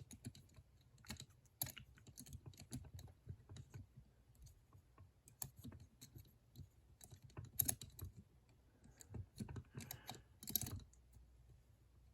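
Lock picks clicking and tapping against the levers inside an antique Chubb patent lever padlock as it is picked: small, irregular metallic clicks, with a few louder ones in the second half.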